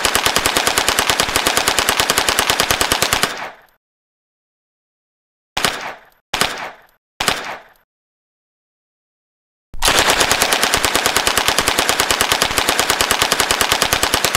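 Uzi submachine gun firing on full automatic: a long burst of rapid, evenly spaced shots that stops about three seconds in, three short bursts over the next few seconds, then a second long burst from about ten seconds in.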